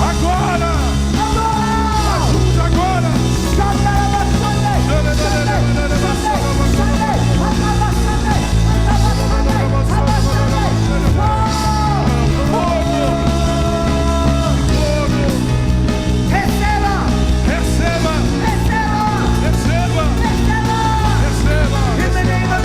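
Loud worship music from a live band, with voices singing over it.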